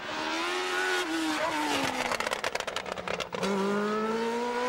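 Lotus 78 Formula One car's Ford-Cosworth DFV V8 at speed: the engine note falls as the car slows, with a run of crackles near the middle, then about three and a half seconds in a lower note climbs steadily as it accelerates.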